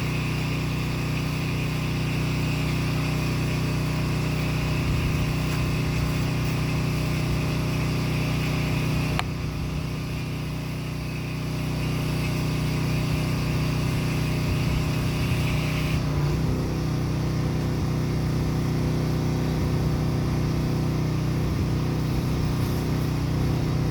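Pressure washer engine running steadily, with the hiss of the spray over it; the hiss stops about two-thirds of the way through while the engine keeps running.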